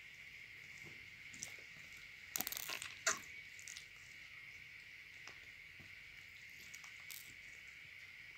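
Clear slime being squeezed and kneaded by hand, making soft wet clicks and crackles, with a cluster of louder pops about two and a half to three seconds in. A faint steady high hiss sits underneath.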